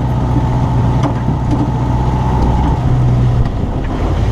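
Jeep M151A2's four-cylinder engine running while the jeep is driven along, with a steady low note. The note swells slightly, then eases off about three and a half seconds in.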